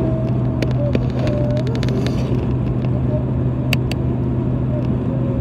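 Car cabin noise while driving at road speed: a steady low drone of engine and tyres, with a few light clicks.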